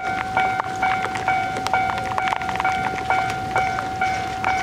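Japanese level-crossing warning bell ringing steadily, a repeated electronic clang about three strikes a second, while the barriers are down.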